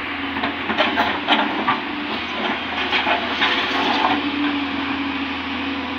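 JCB tracked excavator's diesel engine running steadily, with a string of knocks and scrapes in the first four seconds or so as the bucket works rocks along the ground.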